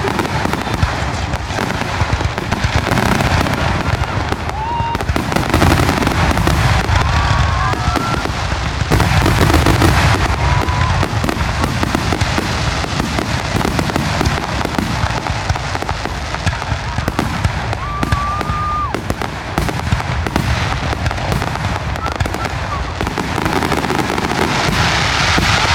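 Fireworks finale barrage: many aerial shells bursting and crackling in rapid, overlapping succession, merging into a continuous loud volley, heaviest about six and ten seconds in.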